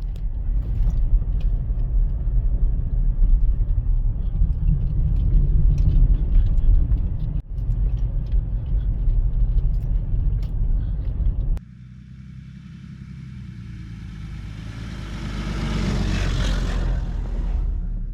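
Car driving, a loud steady low rumble of road and engine noise with scattered small ticks. After a sudden cut it is quieter, and a vehicle's noise swells and then fades near the end, as when one passes.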